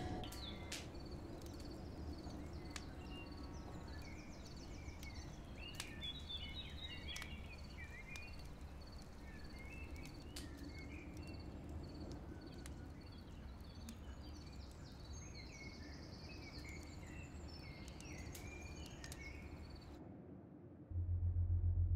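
Woodland ambience: birds chirping and a high chirp repeating about twice a second over a low steady rumble. It cuts off suddenly near the end, and deep electronic music starts.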